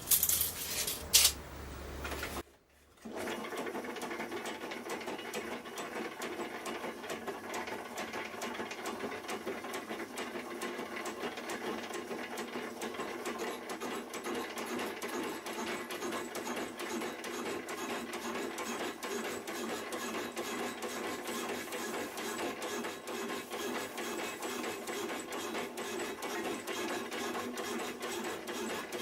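A few knocks, a moment's quiet, then a power cutting saw, most likely a metal-cutting bandsaw, starts about three seconds in and runs steadily through a long cut.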